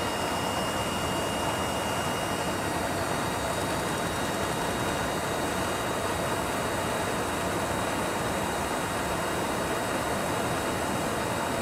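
Steady rushing cabin noise of airflow and engines inside a refuelling tanker aircraft's boom operator compartment, with a faint steady high whine that fades out about three seconds in.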